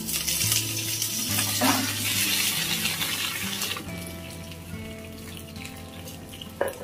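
Curry leaves and green chillies sizzling as they are dropped into hot oil with dried red chillies, the tempering for a sambar; the sizzle is loud at first and settles to a quieter fry about four seconds in. Soft background music with held notes runs underneath.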